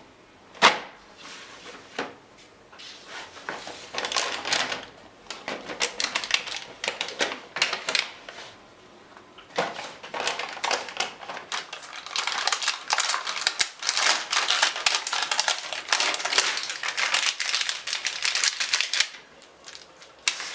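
Hard plastic toys being handled: rapid, irregular clicking and rattling in clustered stretches, with a sharp single click about half a second in.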